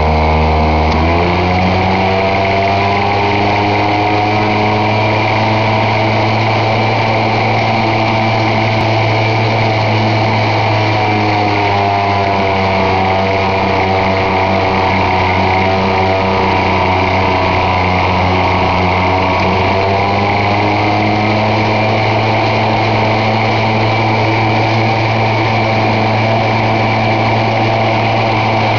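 Cone screw log splitter running steadily with a machine hum. Its pitch sags a little for several seconds in the middle and then recovers, as the spinning cone screws into an upright log and splits it.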